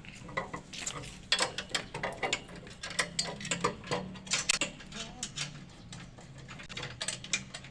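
Irregular light clicks and metallic clinks of a metal swing-bench frame being assembled: tubes knocking against the wooden slats and bolts fitted and turned by hand.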